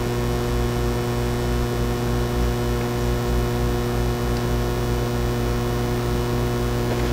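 Steady electrical mains hum: a constant low buzz with several higher overtones held at one pitch, over a faint uneven low rumble.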